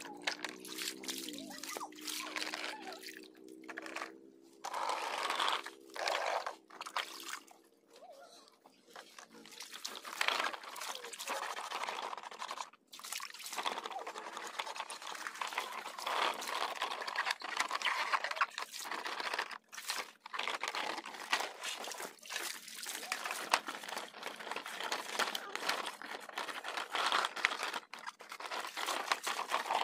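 Water splashing and sloshing as plastic toy dump trucks are rubbed and moved through shallow water, with scrapes and knocks of the hollow plastic bodies. A held pitched drone sounds over the first few seconds.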